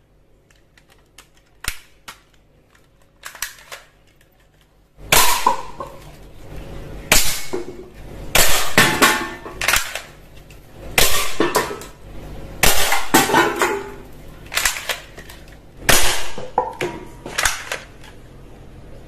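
Toy AK-47 rifle: a few clicks as the magazine is fitted, then, about five seconds in, a string of single shots roughly a second apart, each with a short rattling clatter of cans and cups being hit and knocked over.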